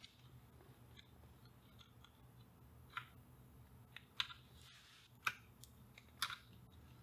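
Soldering iron and copper desoldering braid working the solder joints of a capacitor on an old circuit board: four short crackling ticks, spaced about a second apart, over a faint low hum.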